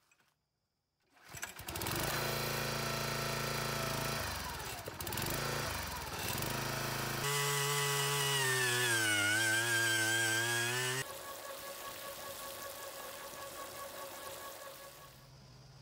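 A 22-ton gas log splitter's small engine comes up to speed and runs steadily. After an abrupt cut, a handheld two-stroke earth auger runs loud and high, its pitch dipping as the bit bores into the soil and then recovering. It ends with a quieter rush of water from a hose gushing into the dirt hole.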